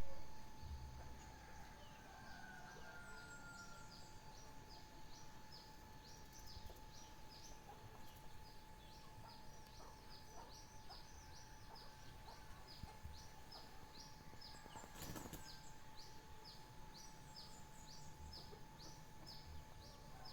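Songbirds singing, faint: one bird repeats short, high, downward-sweeping notes about twice a second, with a few other chirps, over a faint steady hum. A brief crackle comes about fifteen seconds in.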